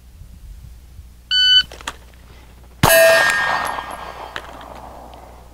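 Shot-timer start beep, then about a second and a half later a single 9mm pistol shot with the bullet ringing a steel target, the ring fading over about two seconds.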